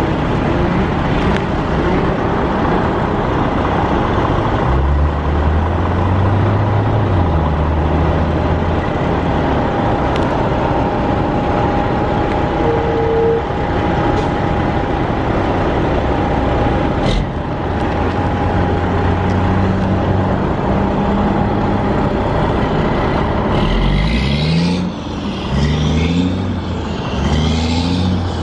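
Road traffic passing at an intersection, engines running. Near the end one vehicle accelerates through its gears, its engine pitch rising several times in a row.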